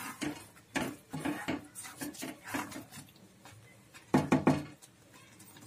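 Wooden spatula stirring and scraping thick grated sweet-potato halwa around a non-stick pan in repeated short strokes, with a louder clatter of wood on the pan about four seconds in.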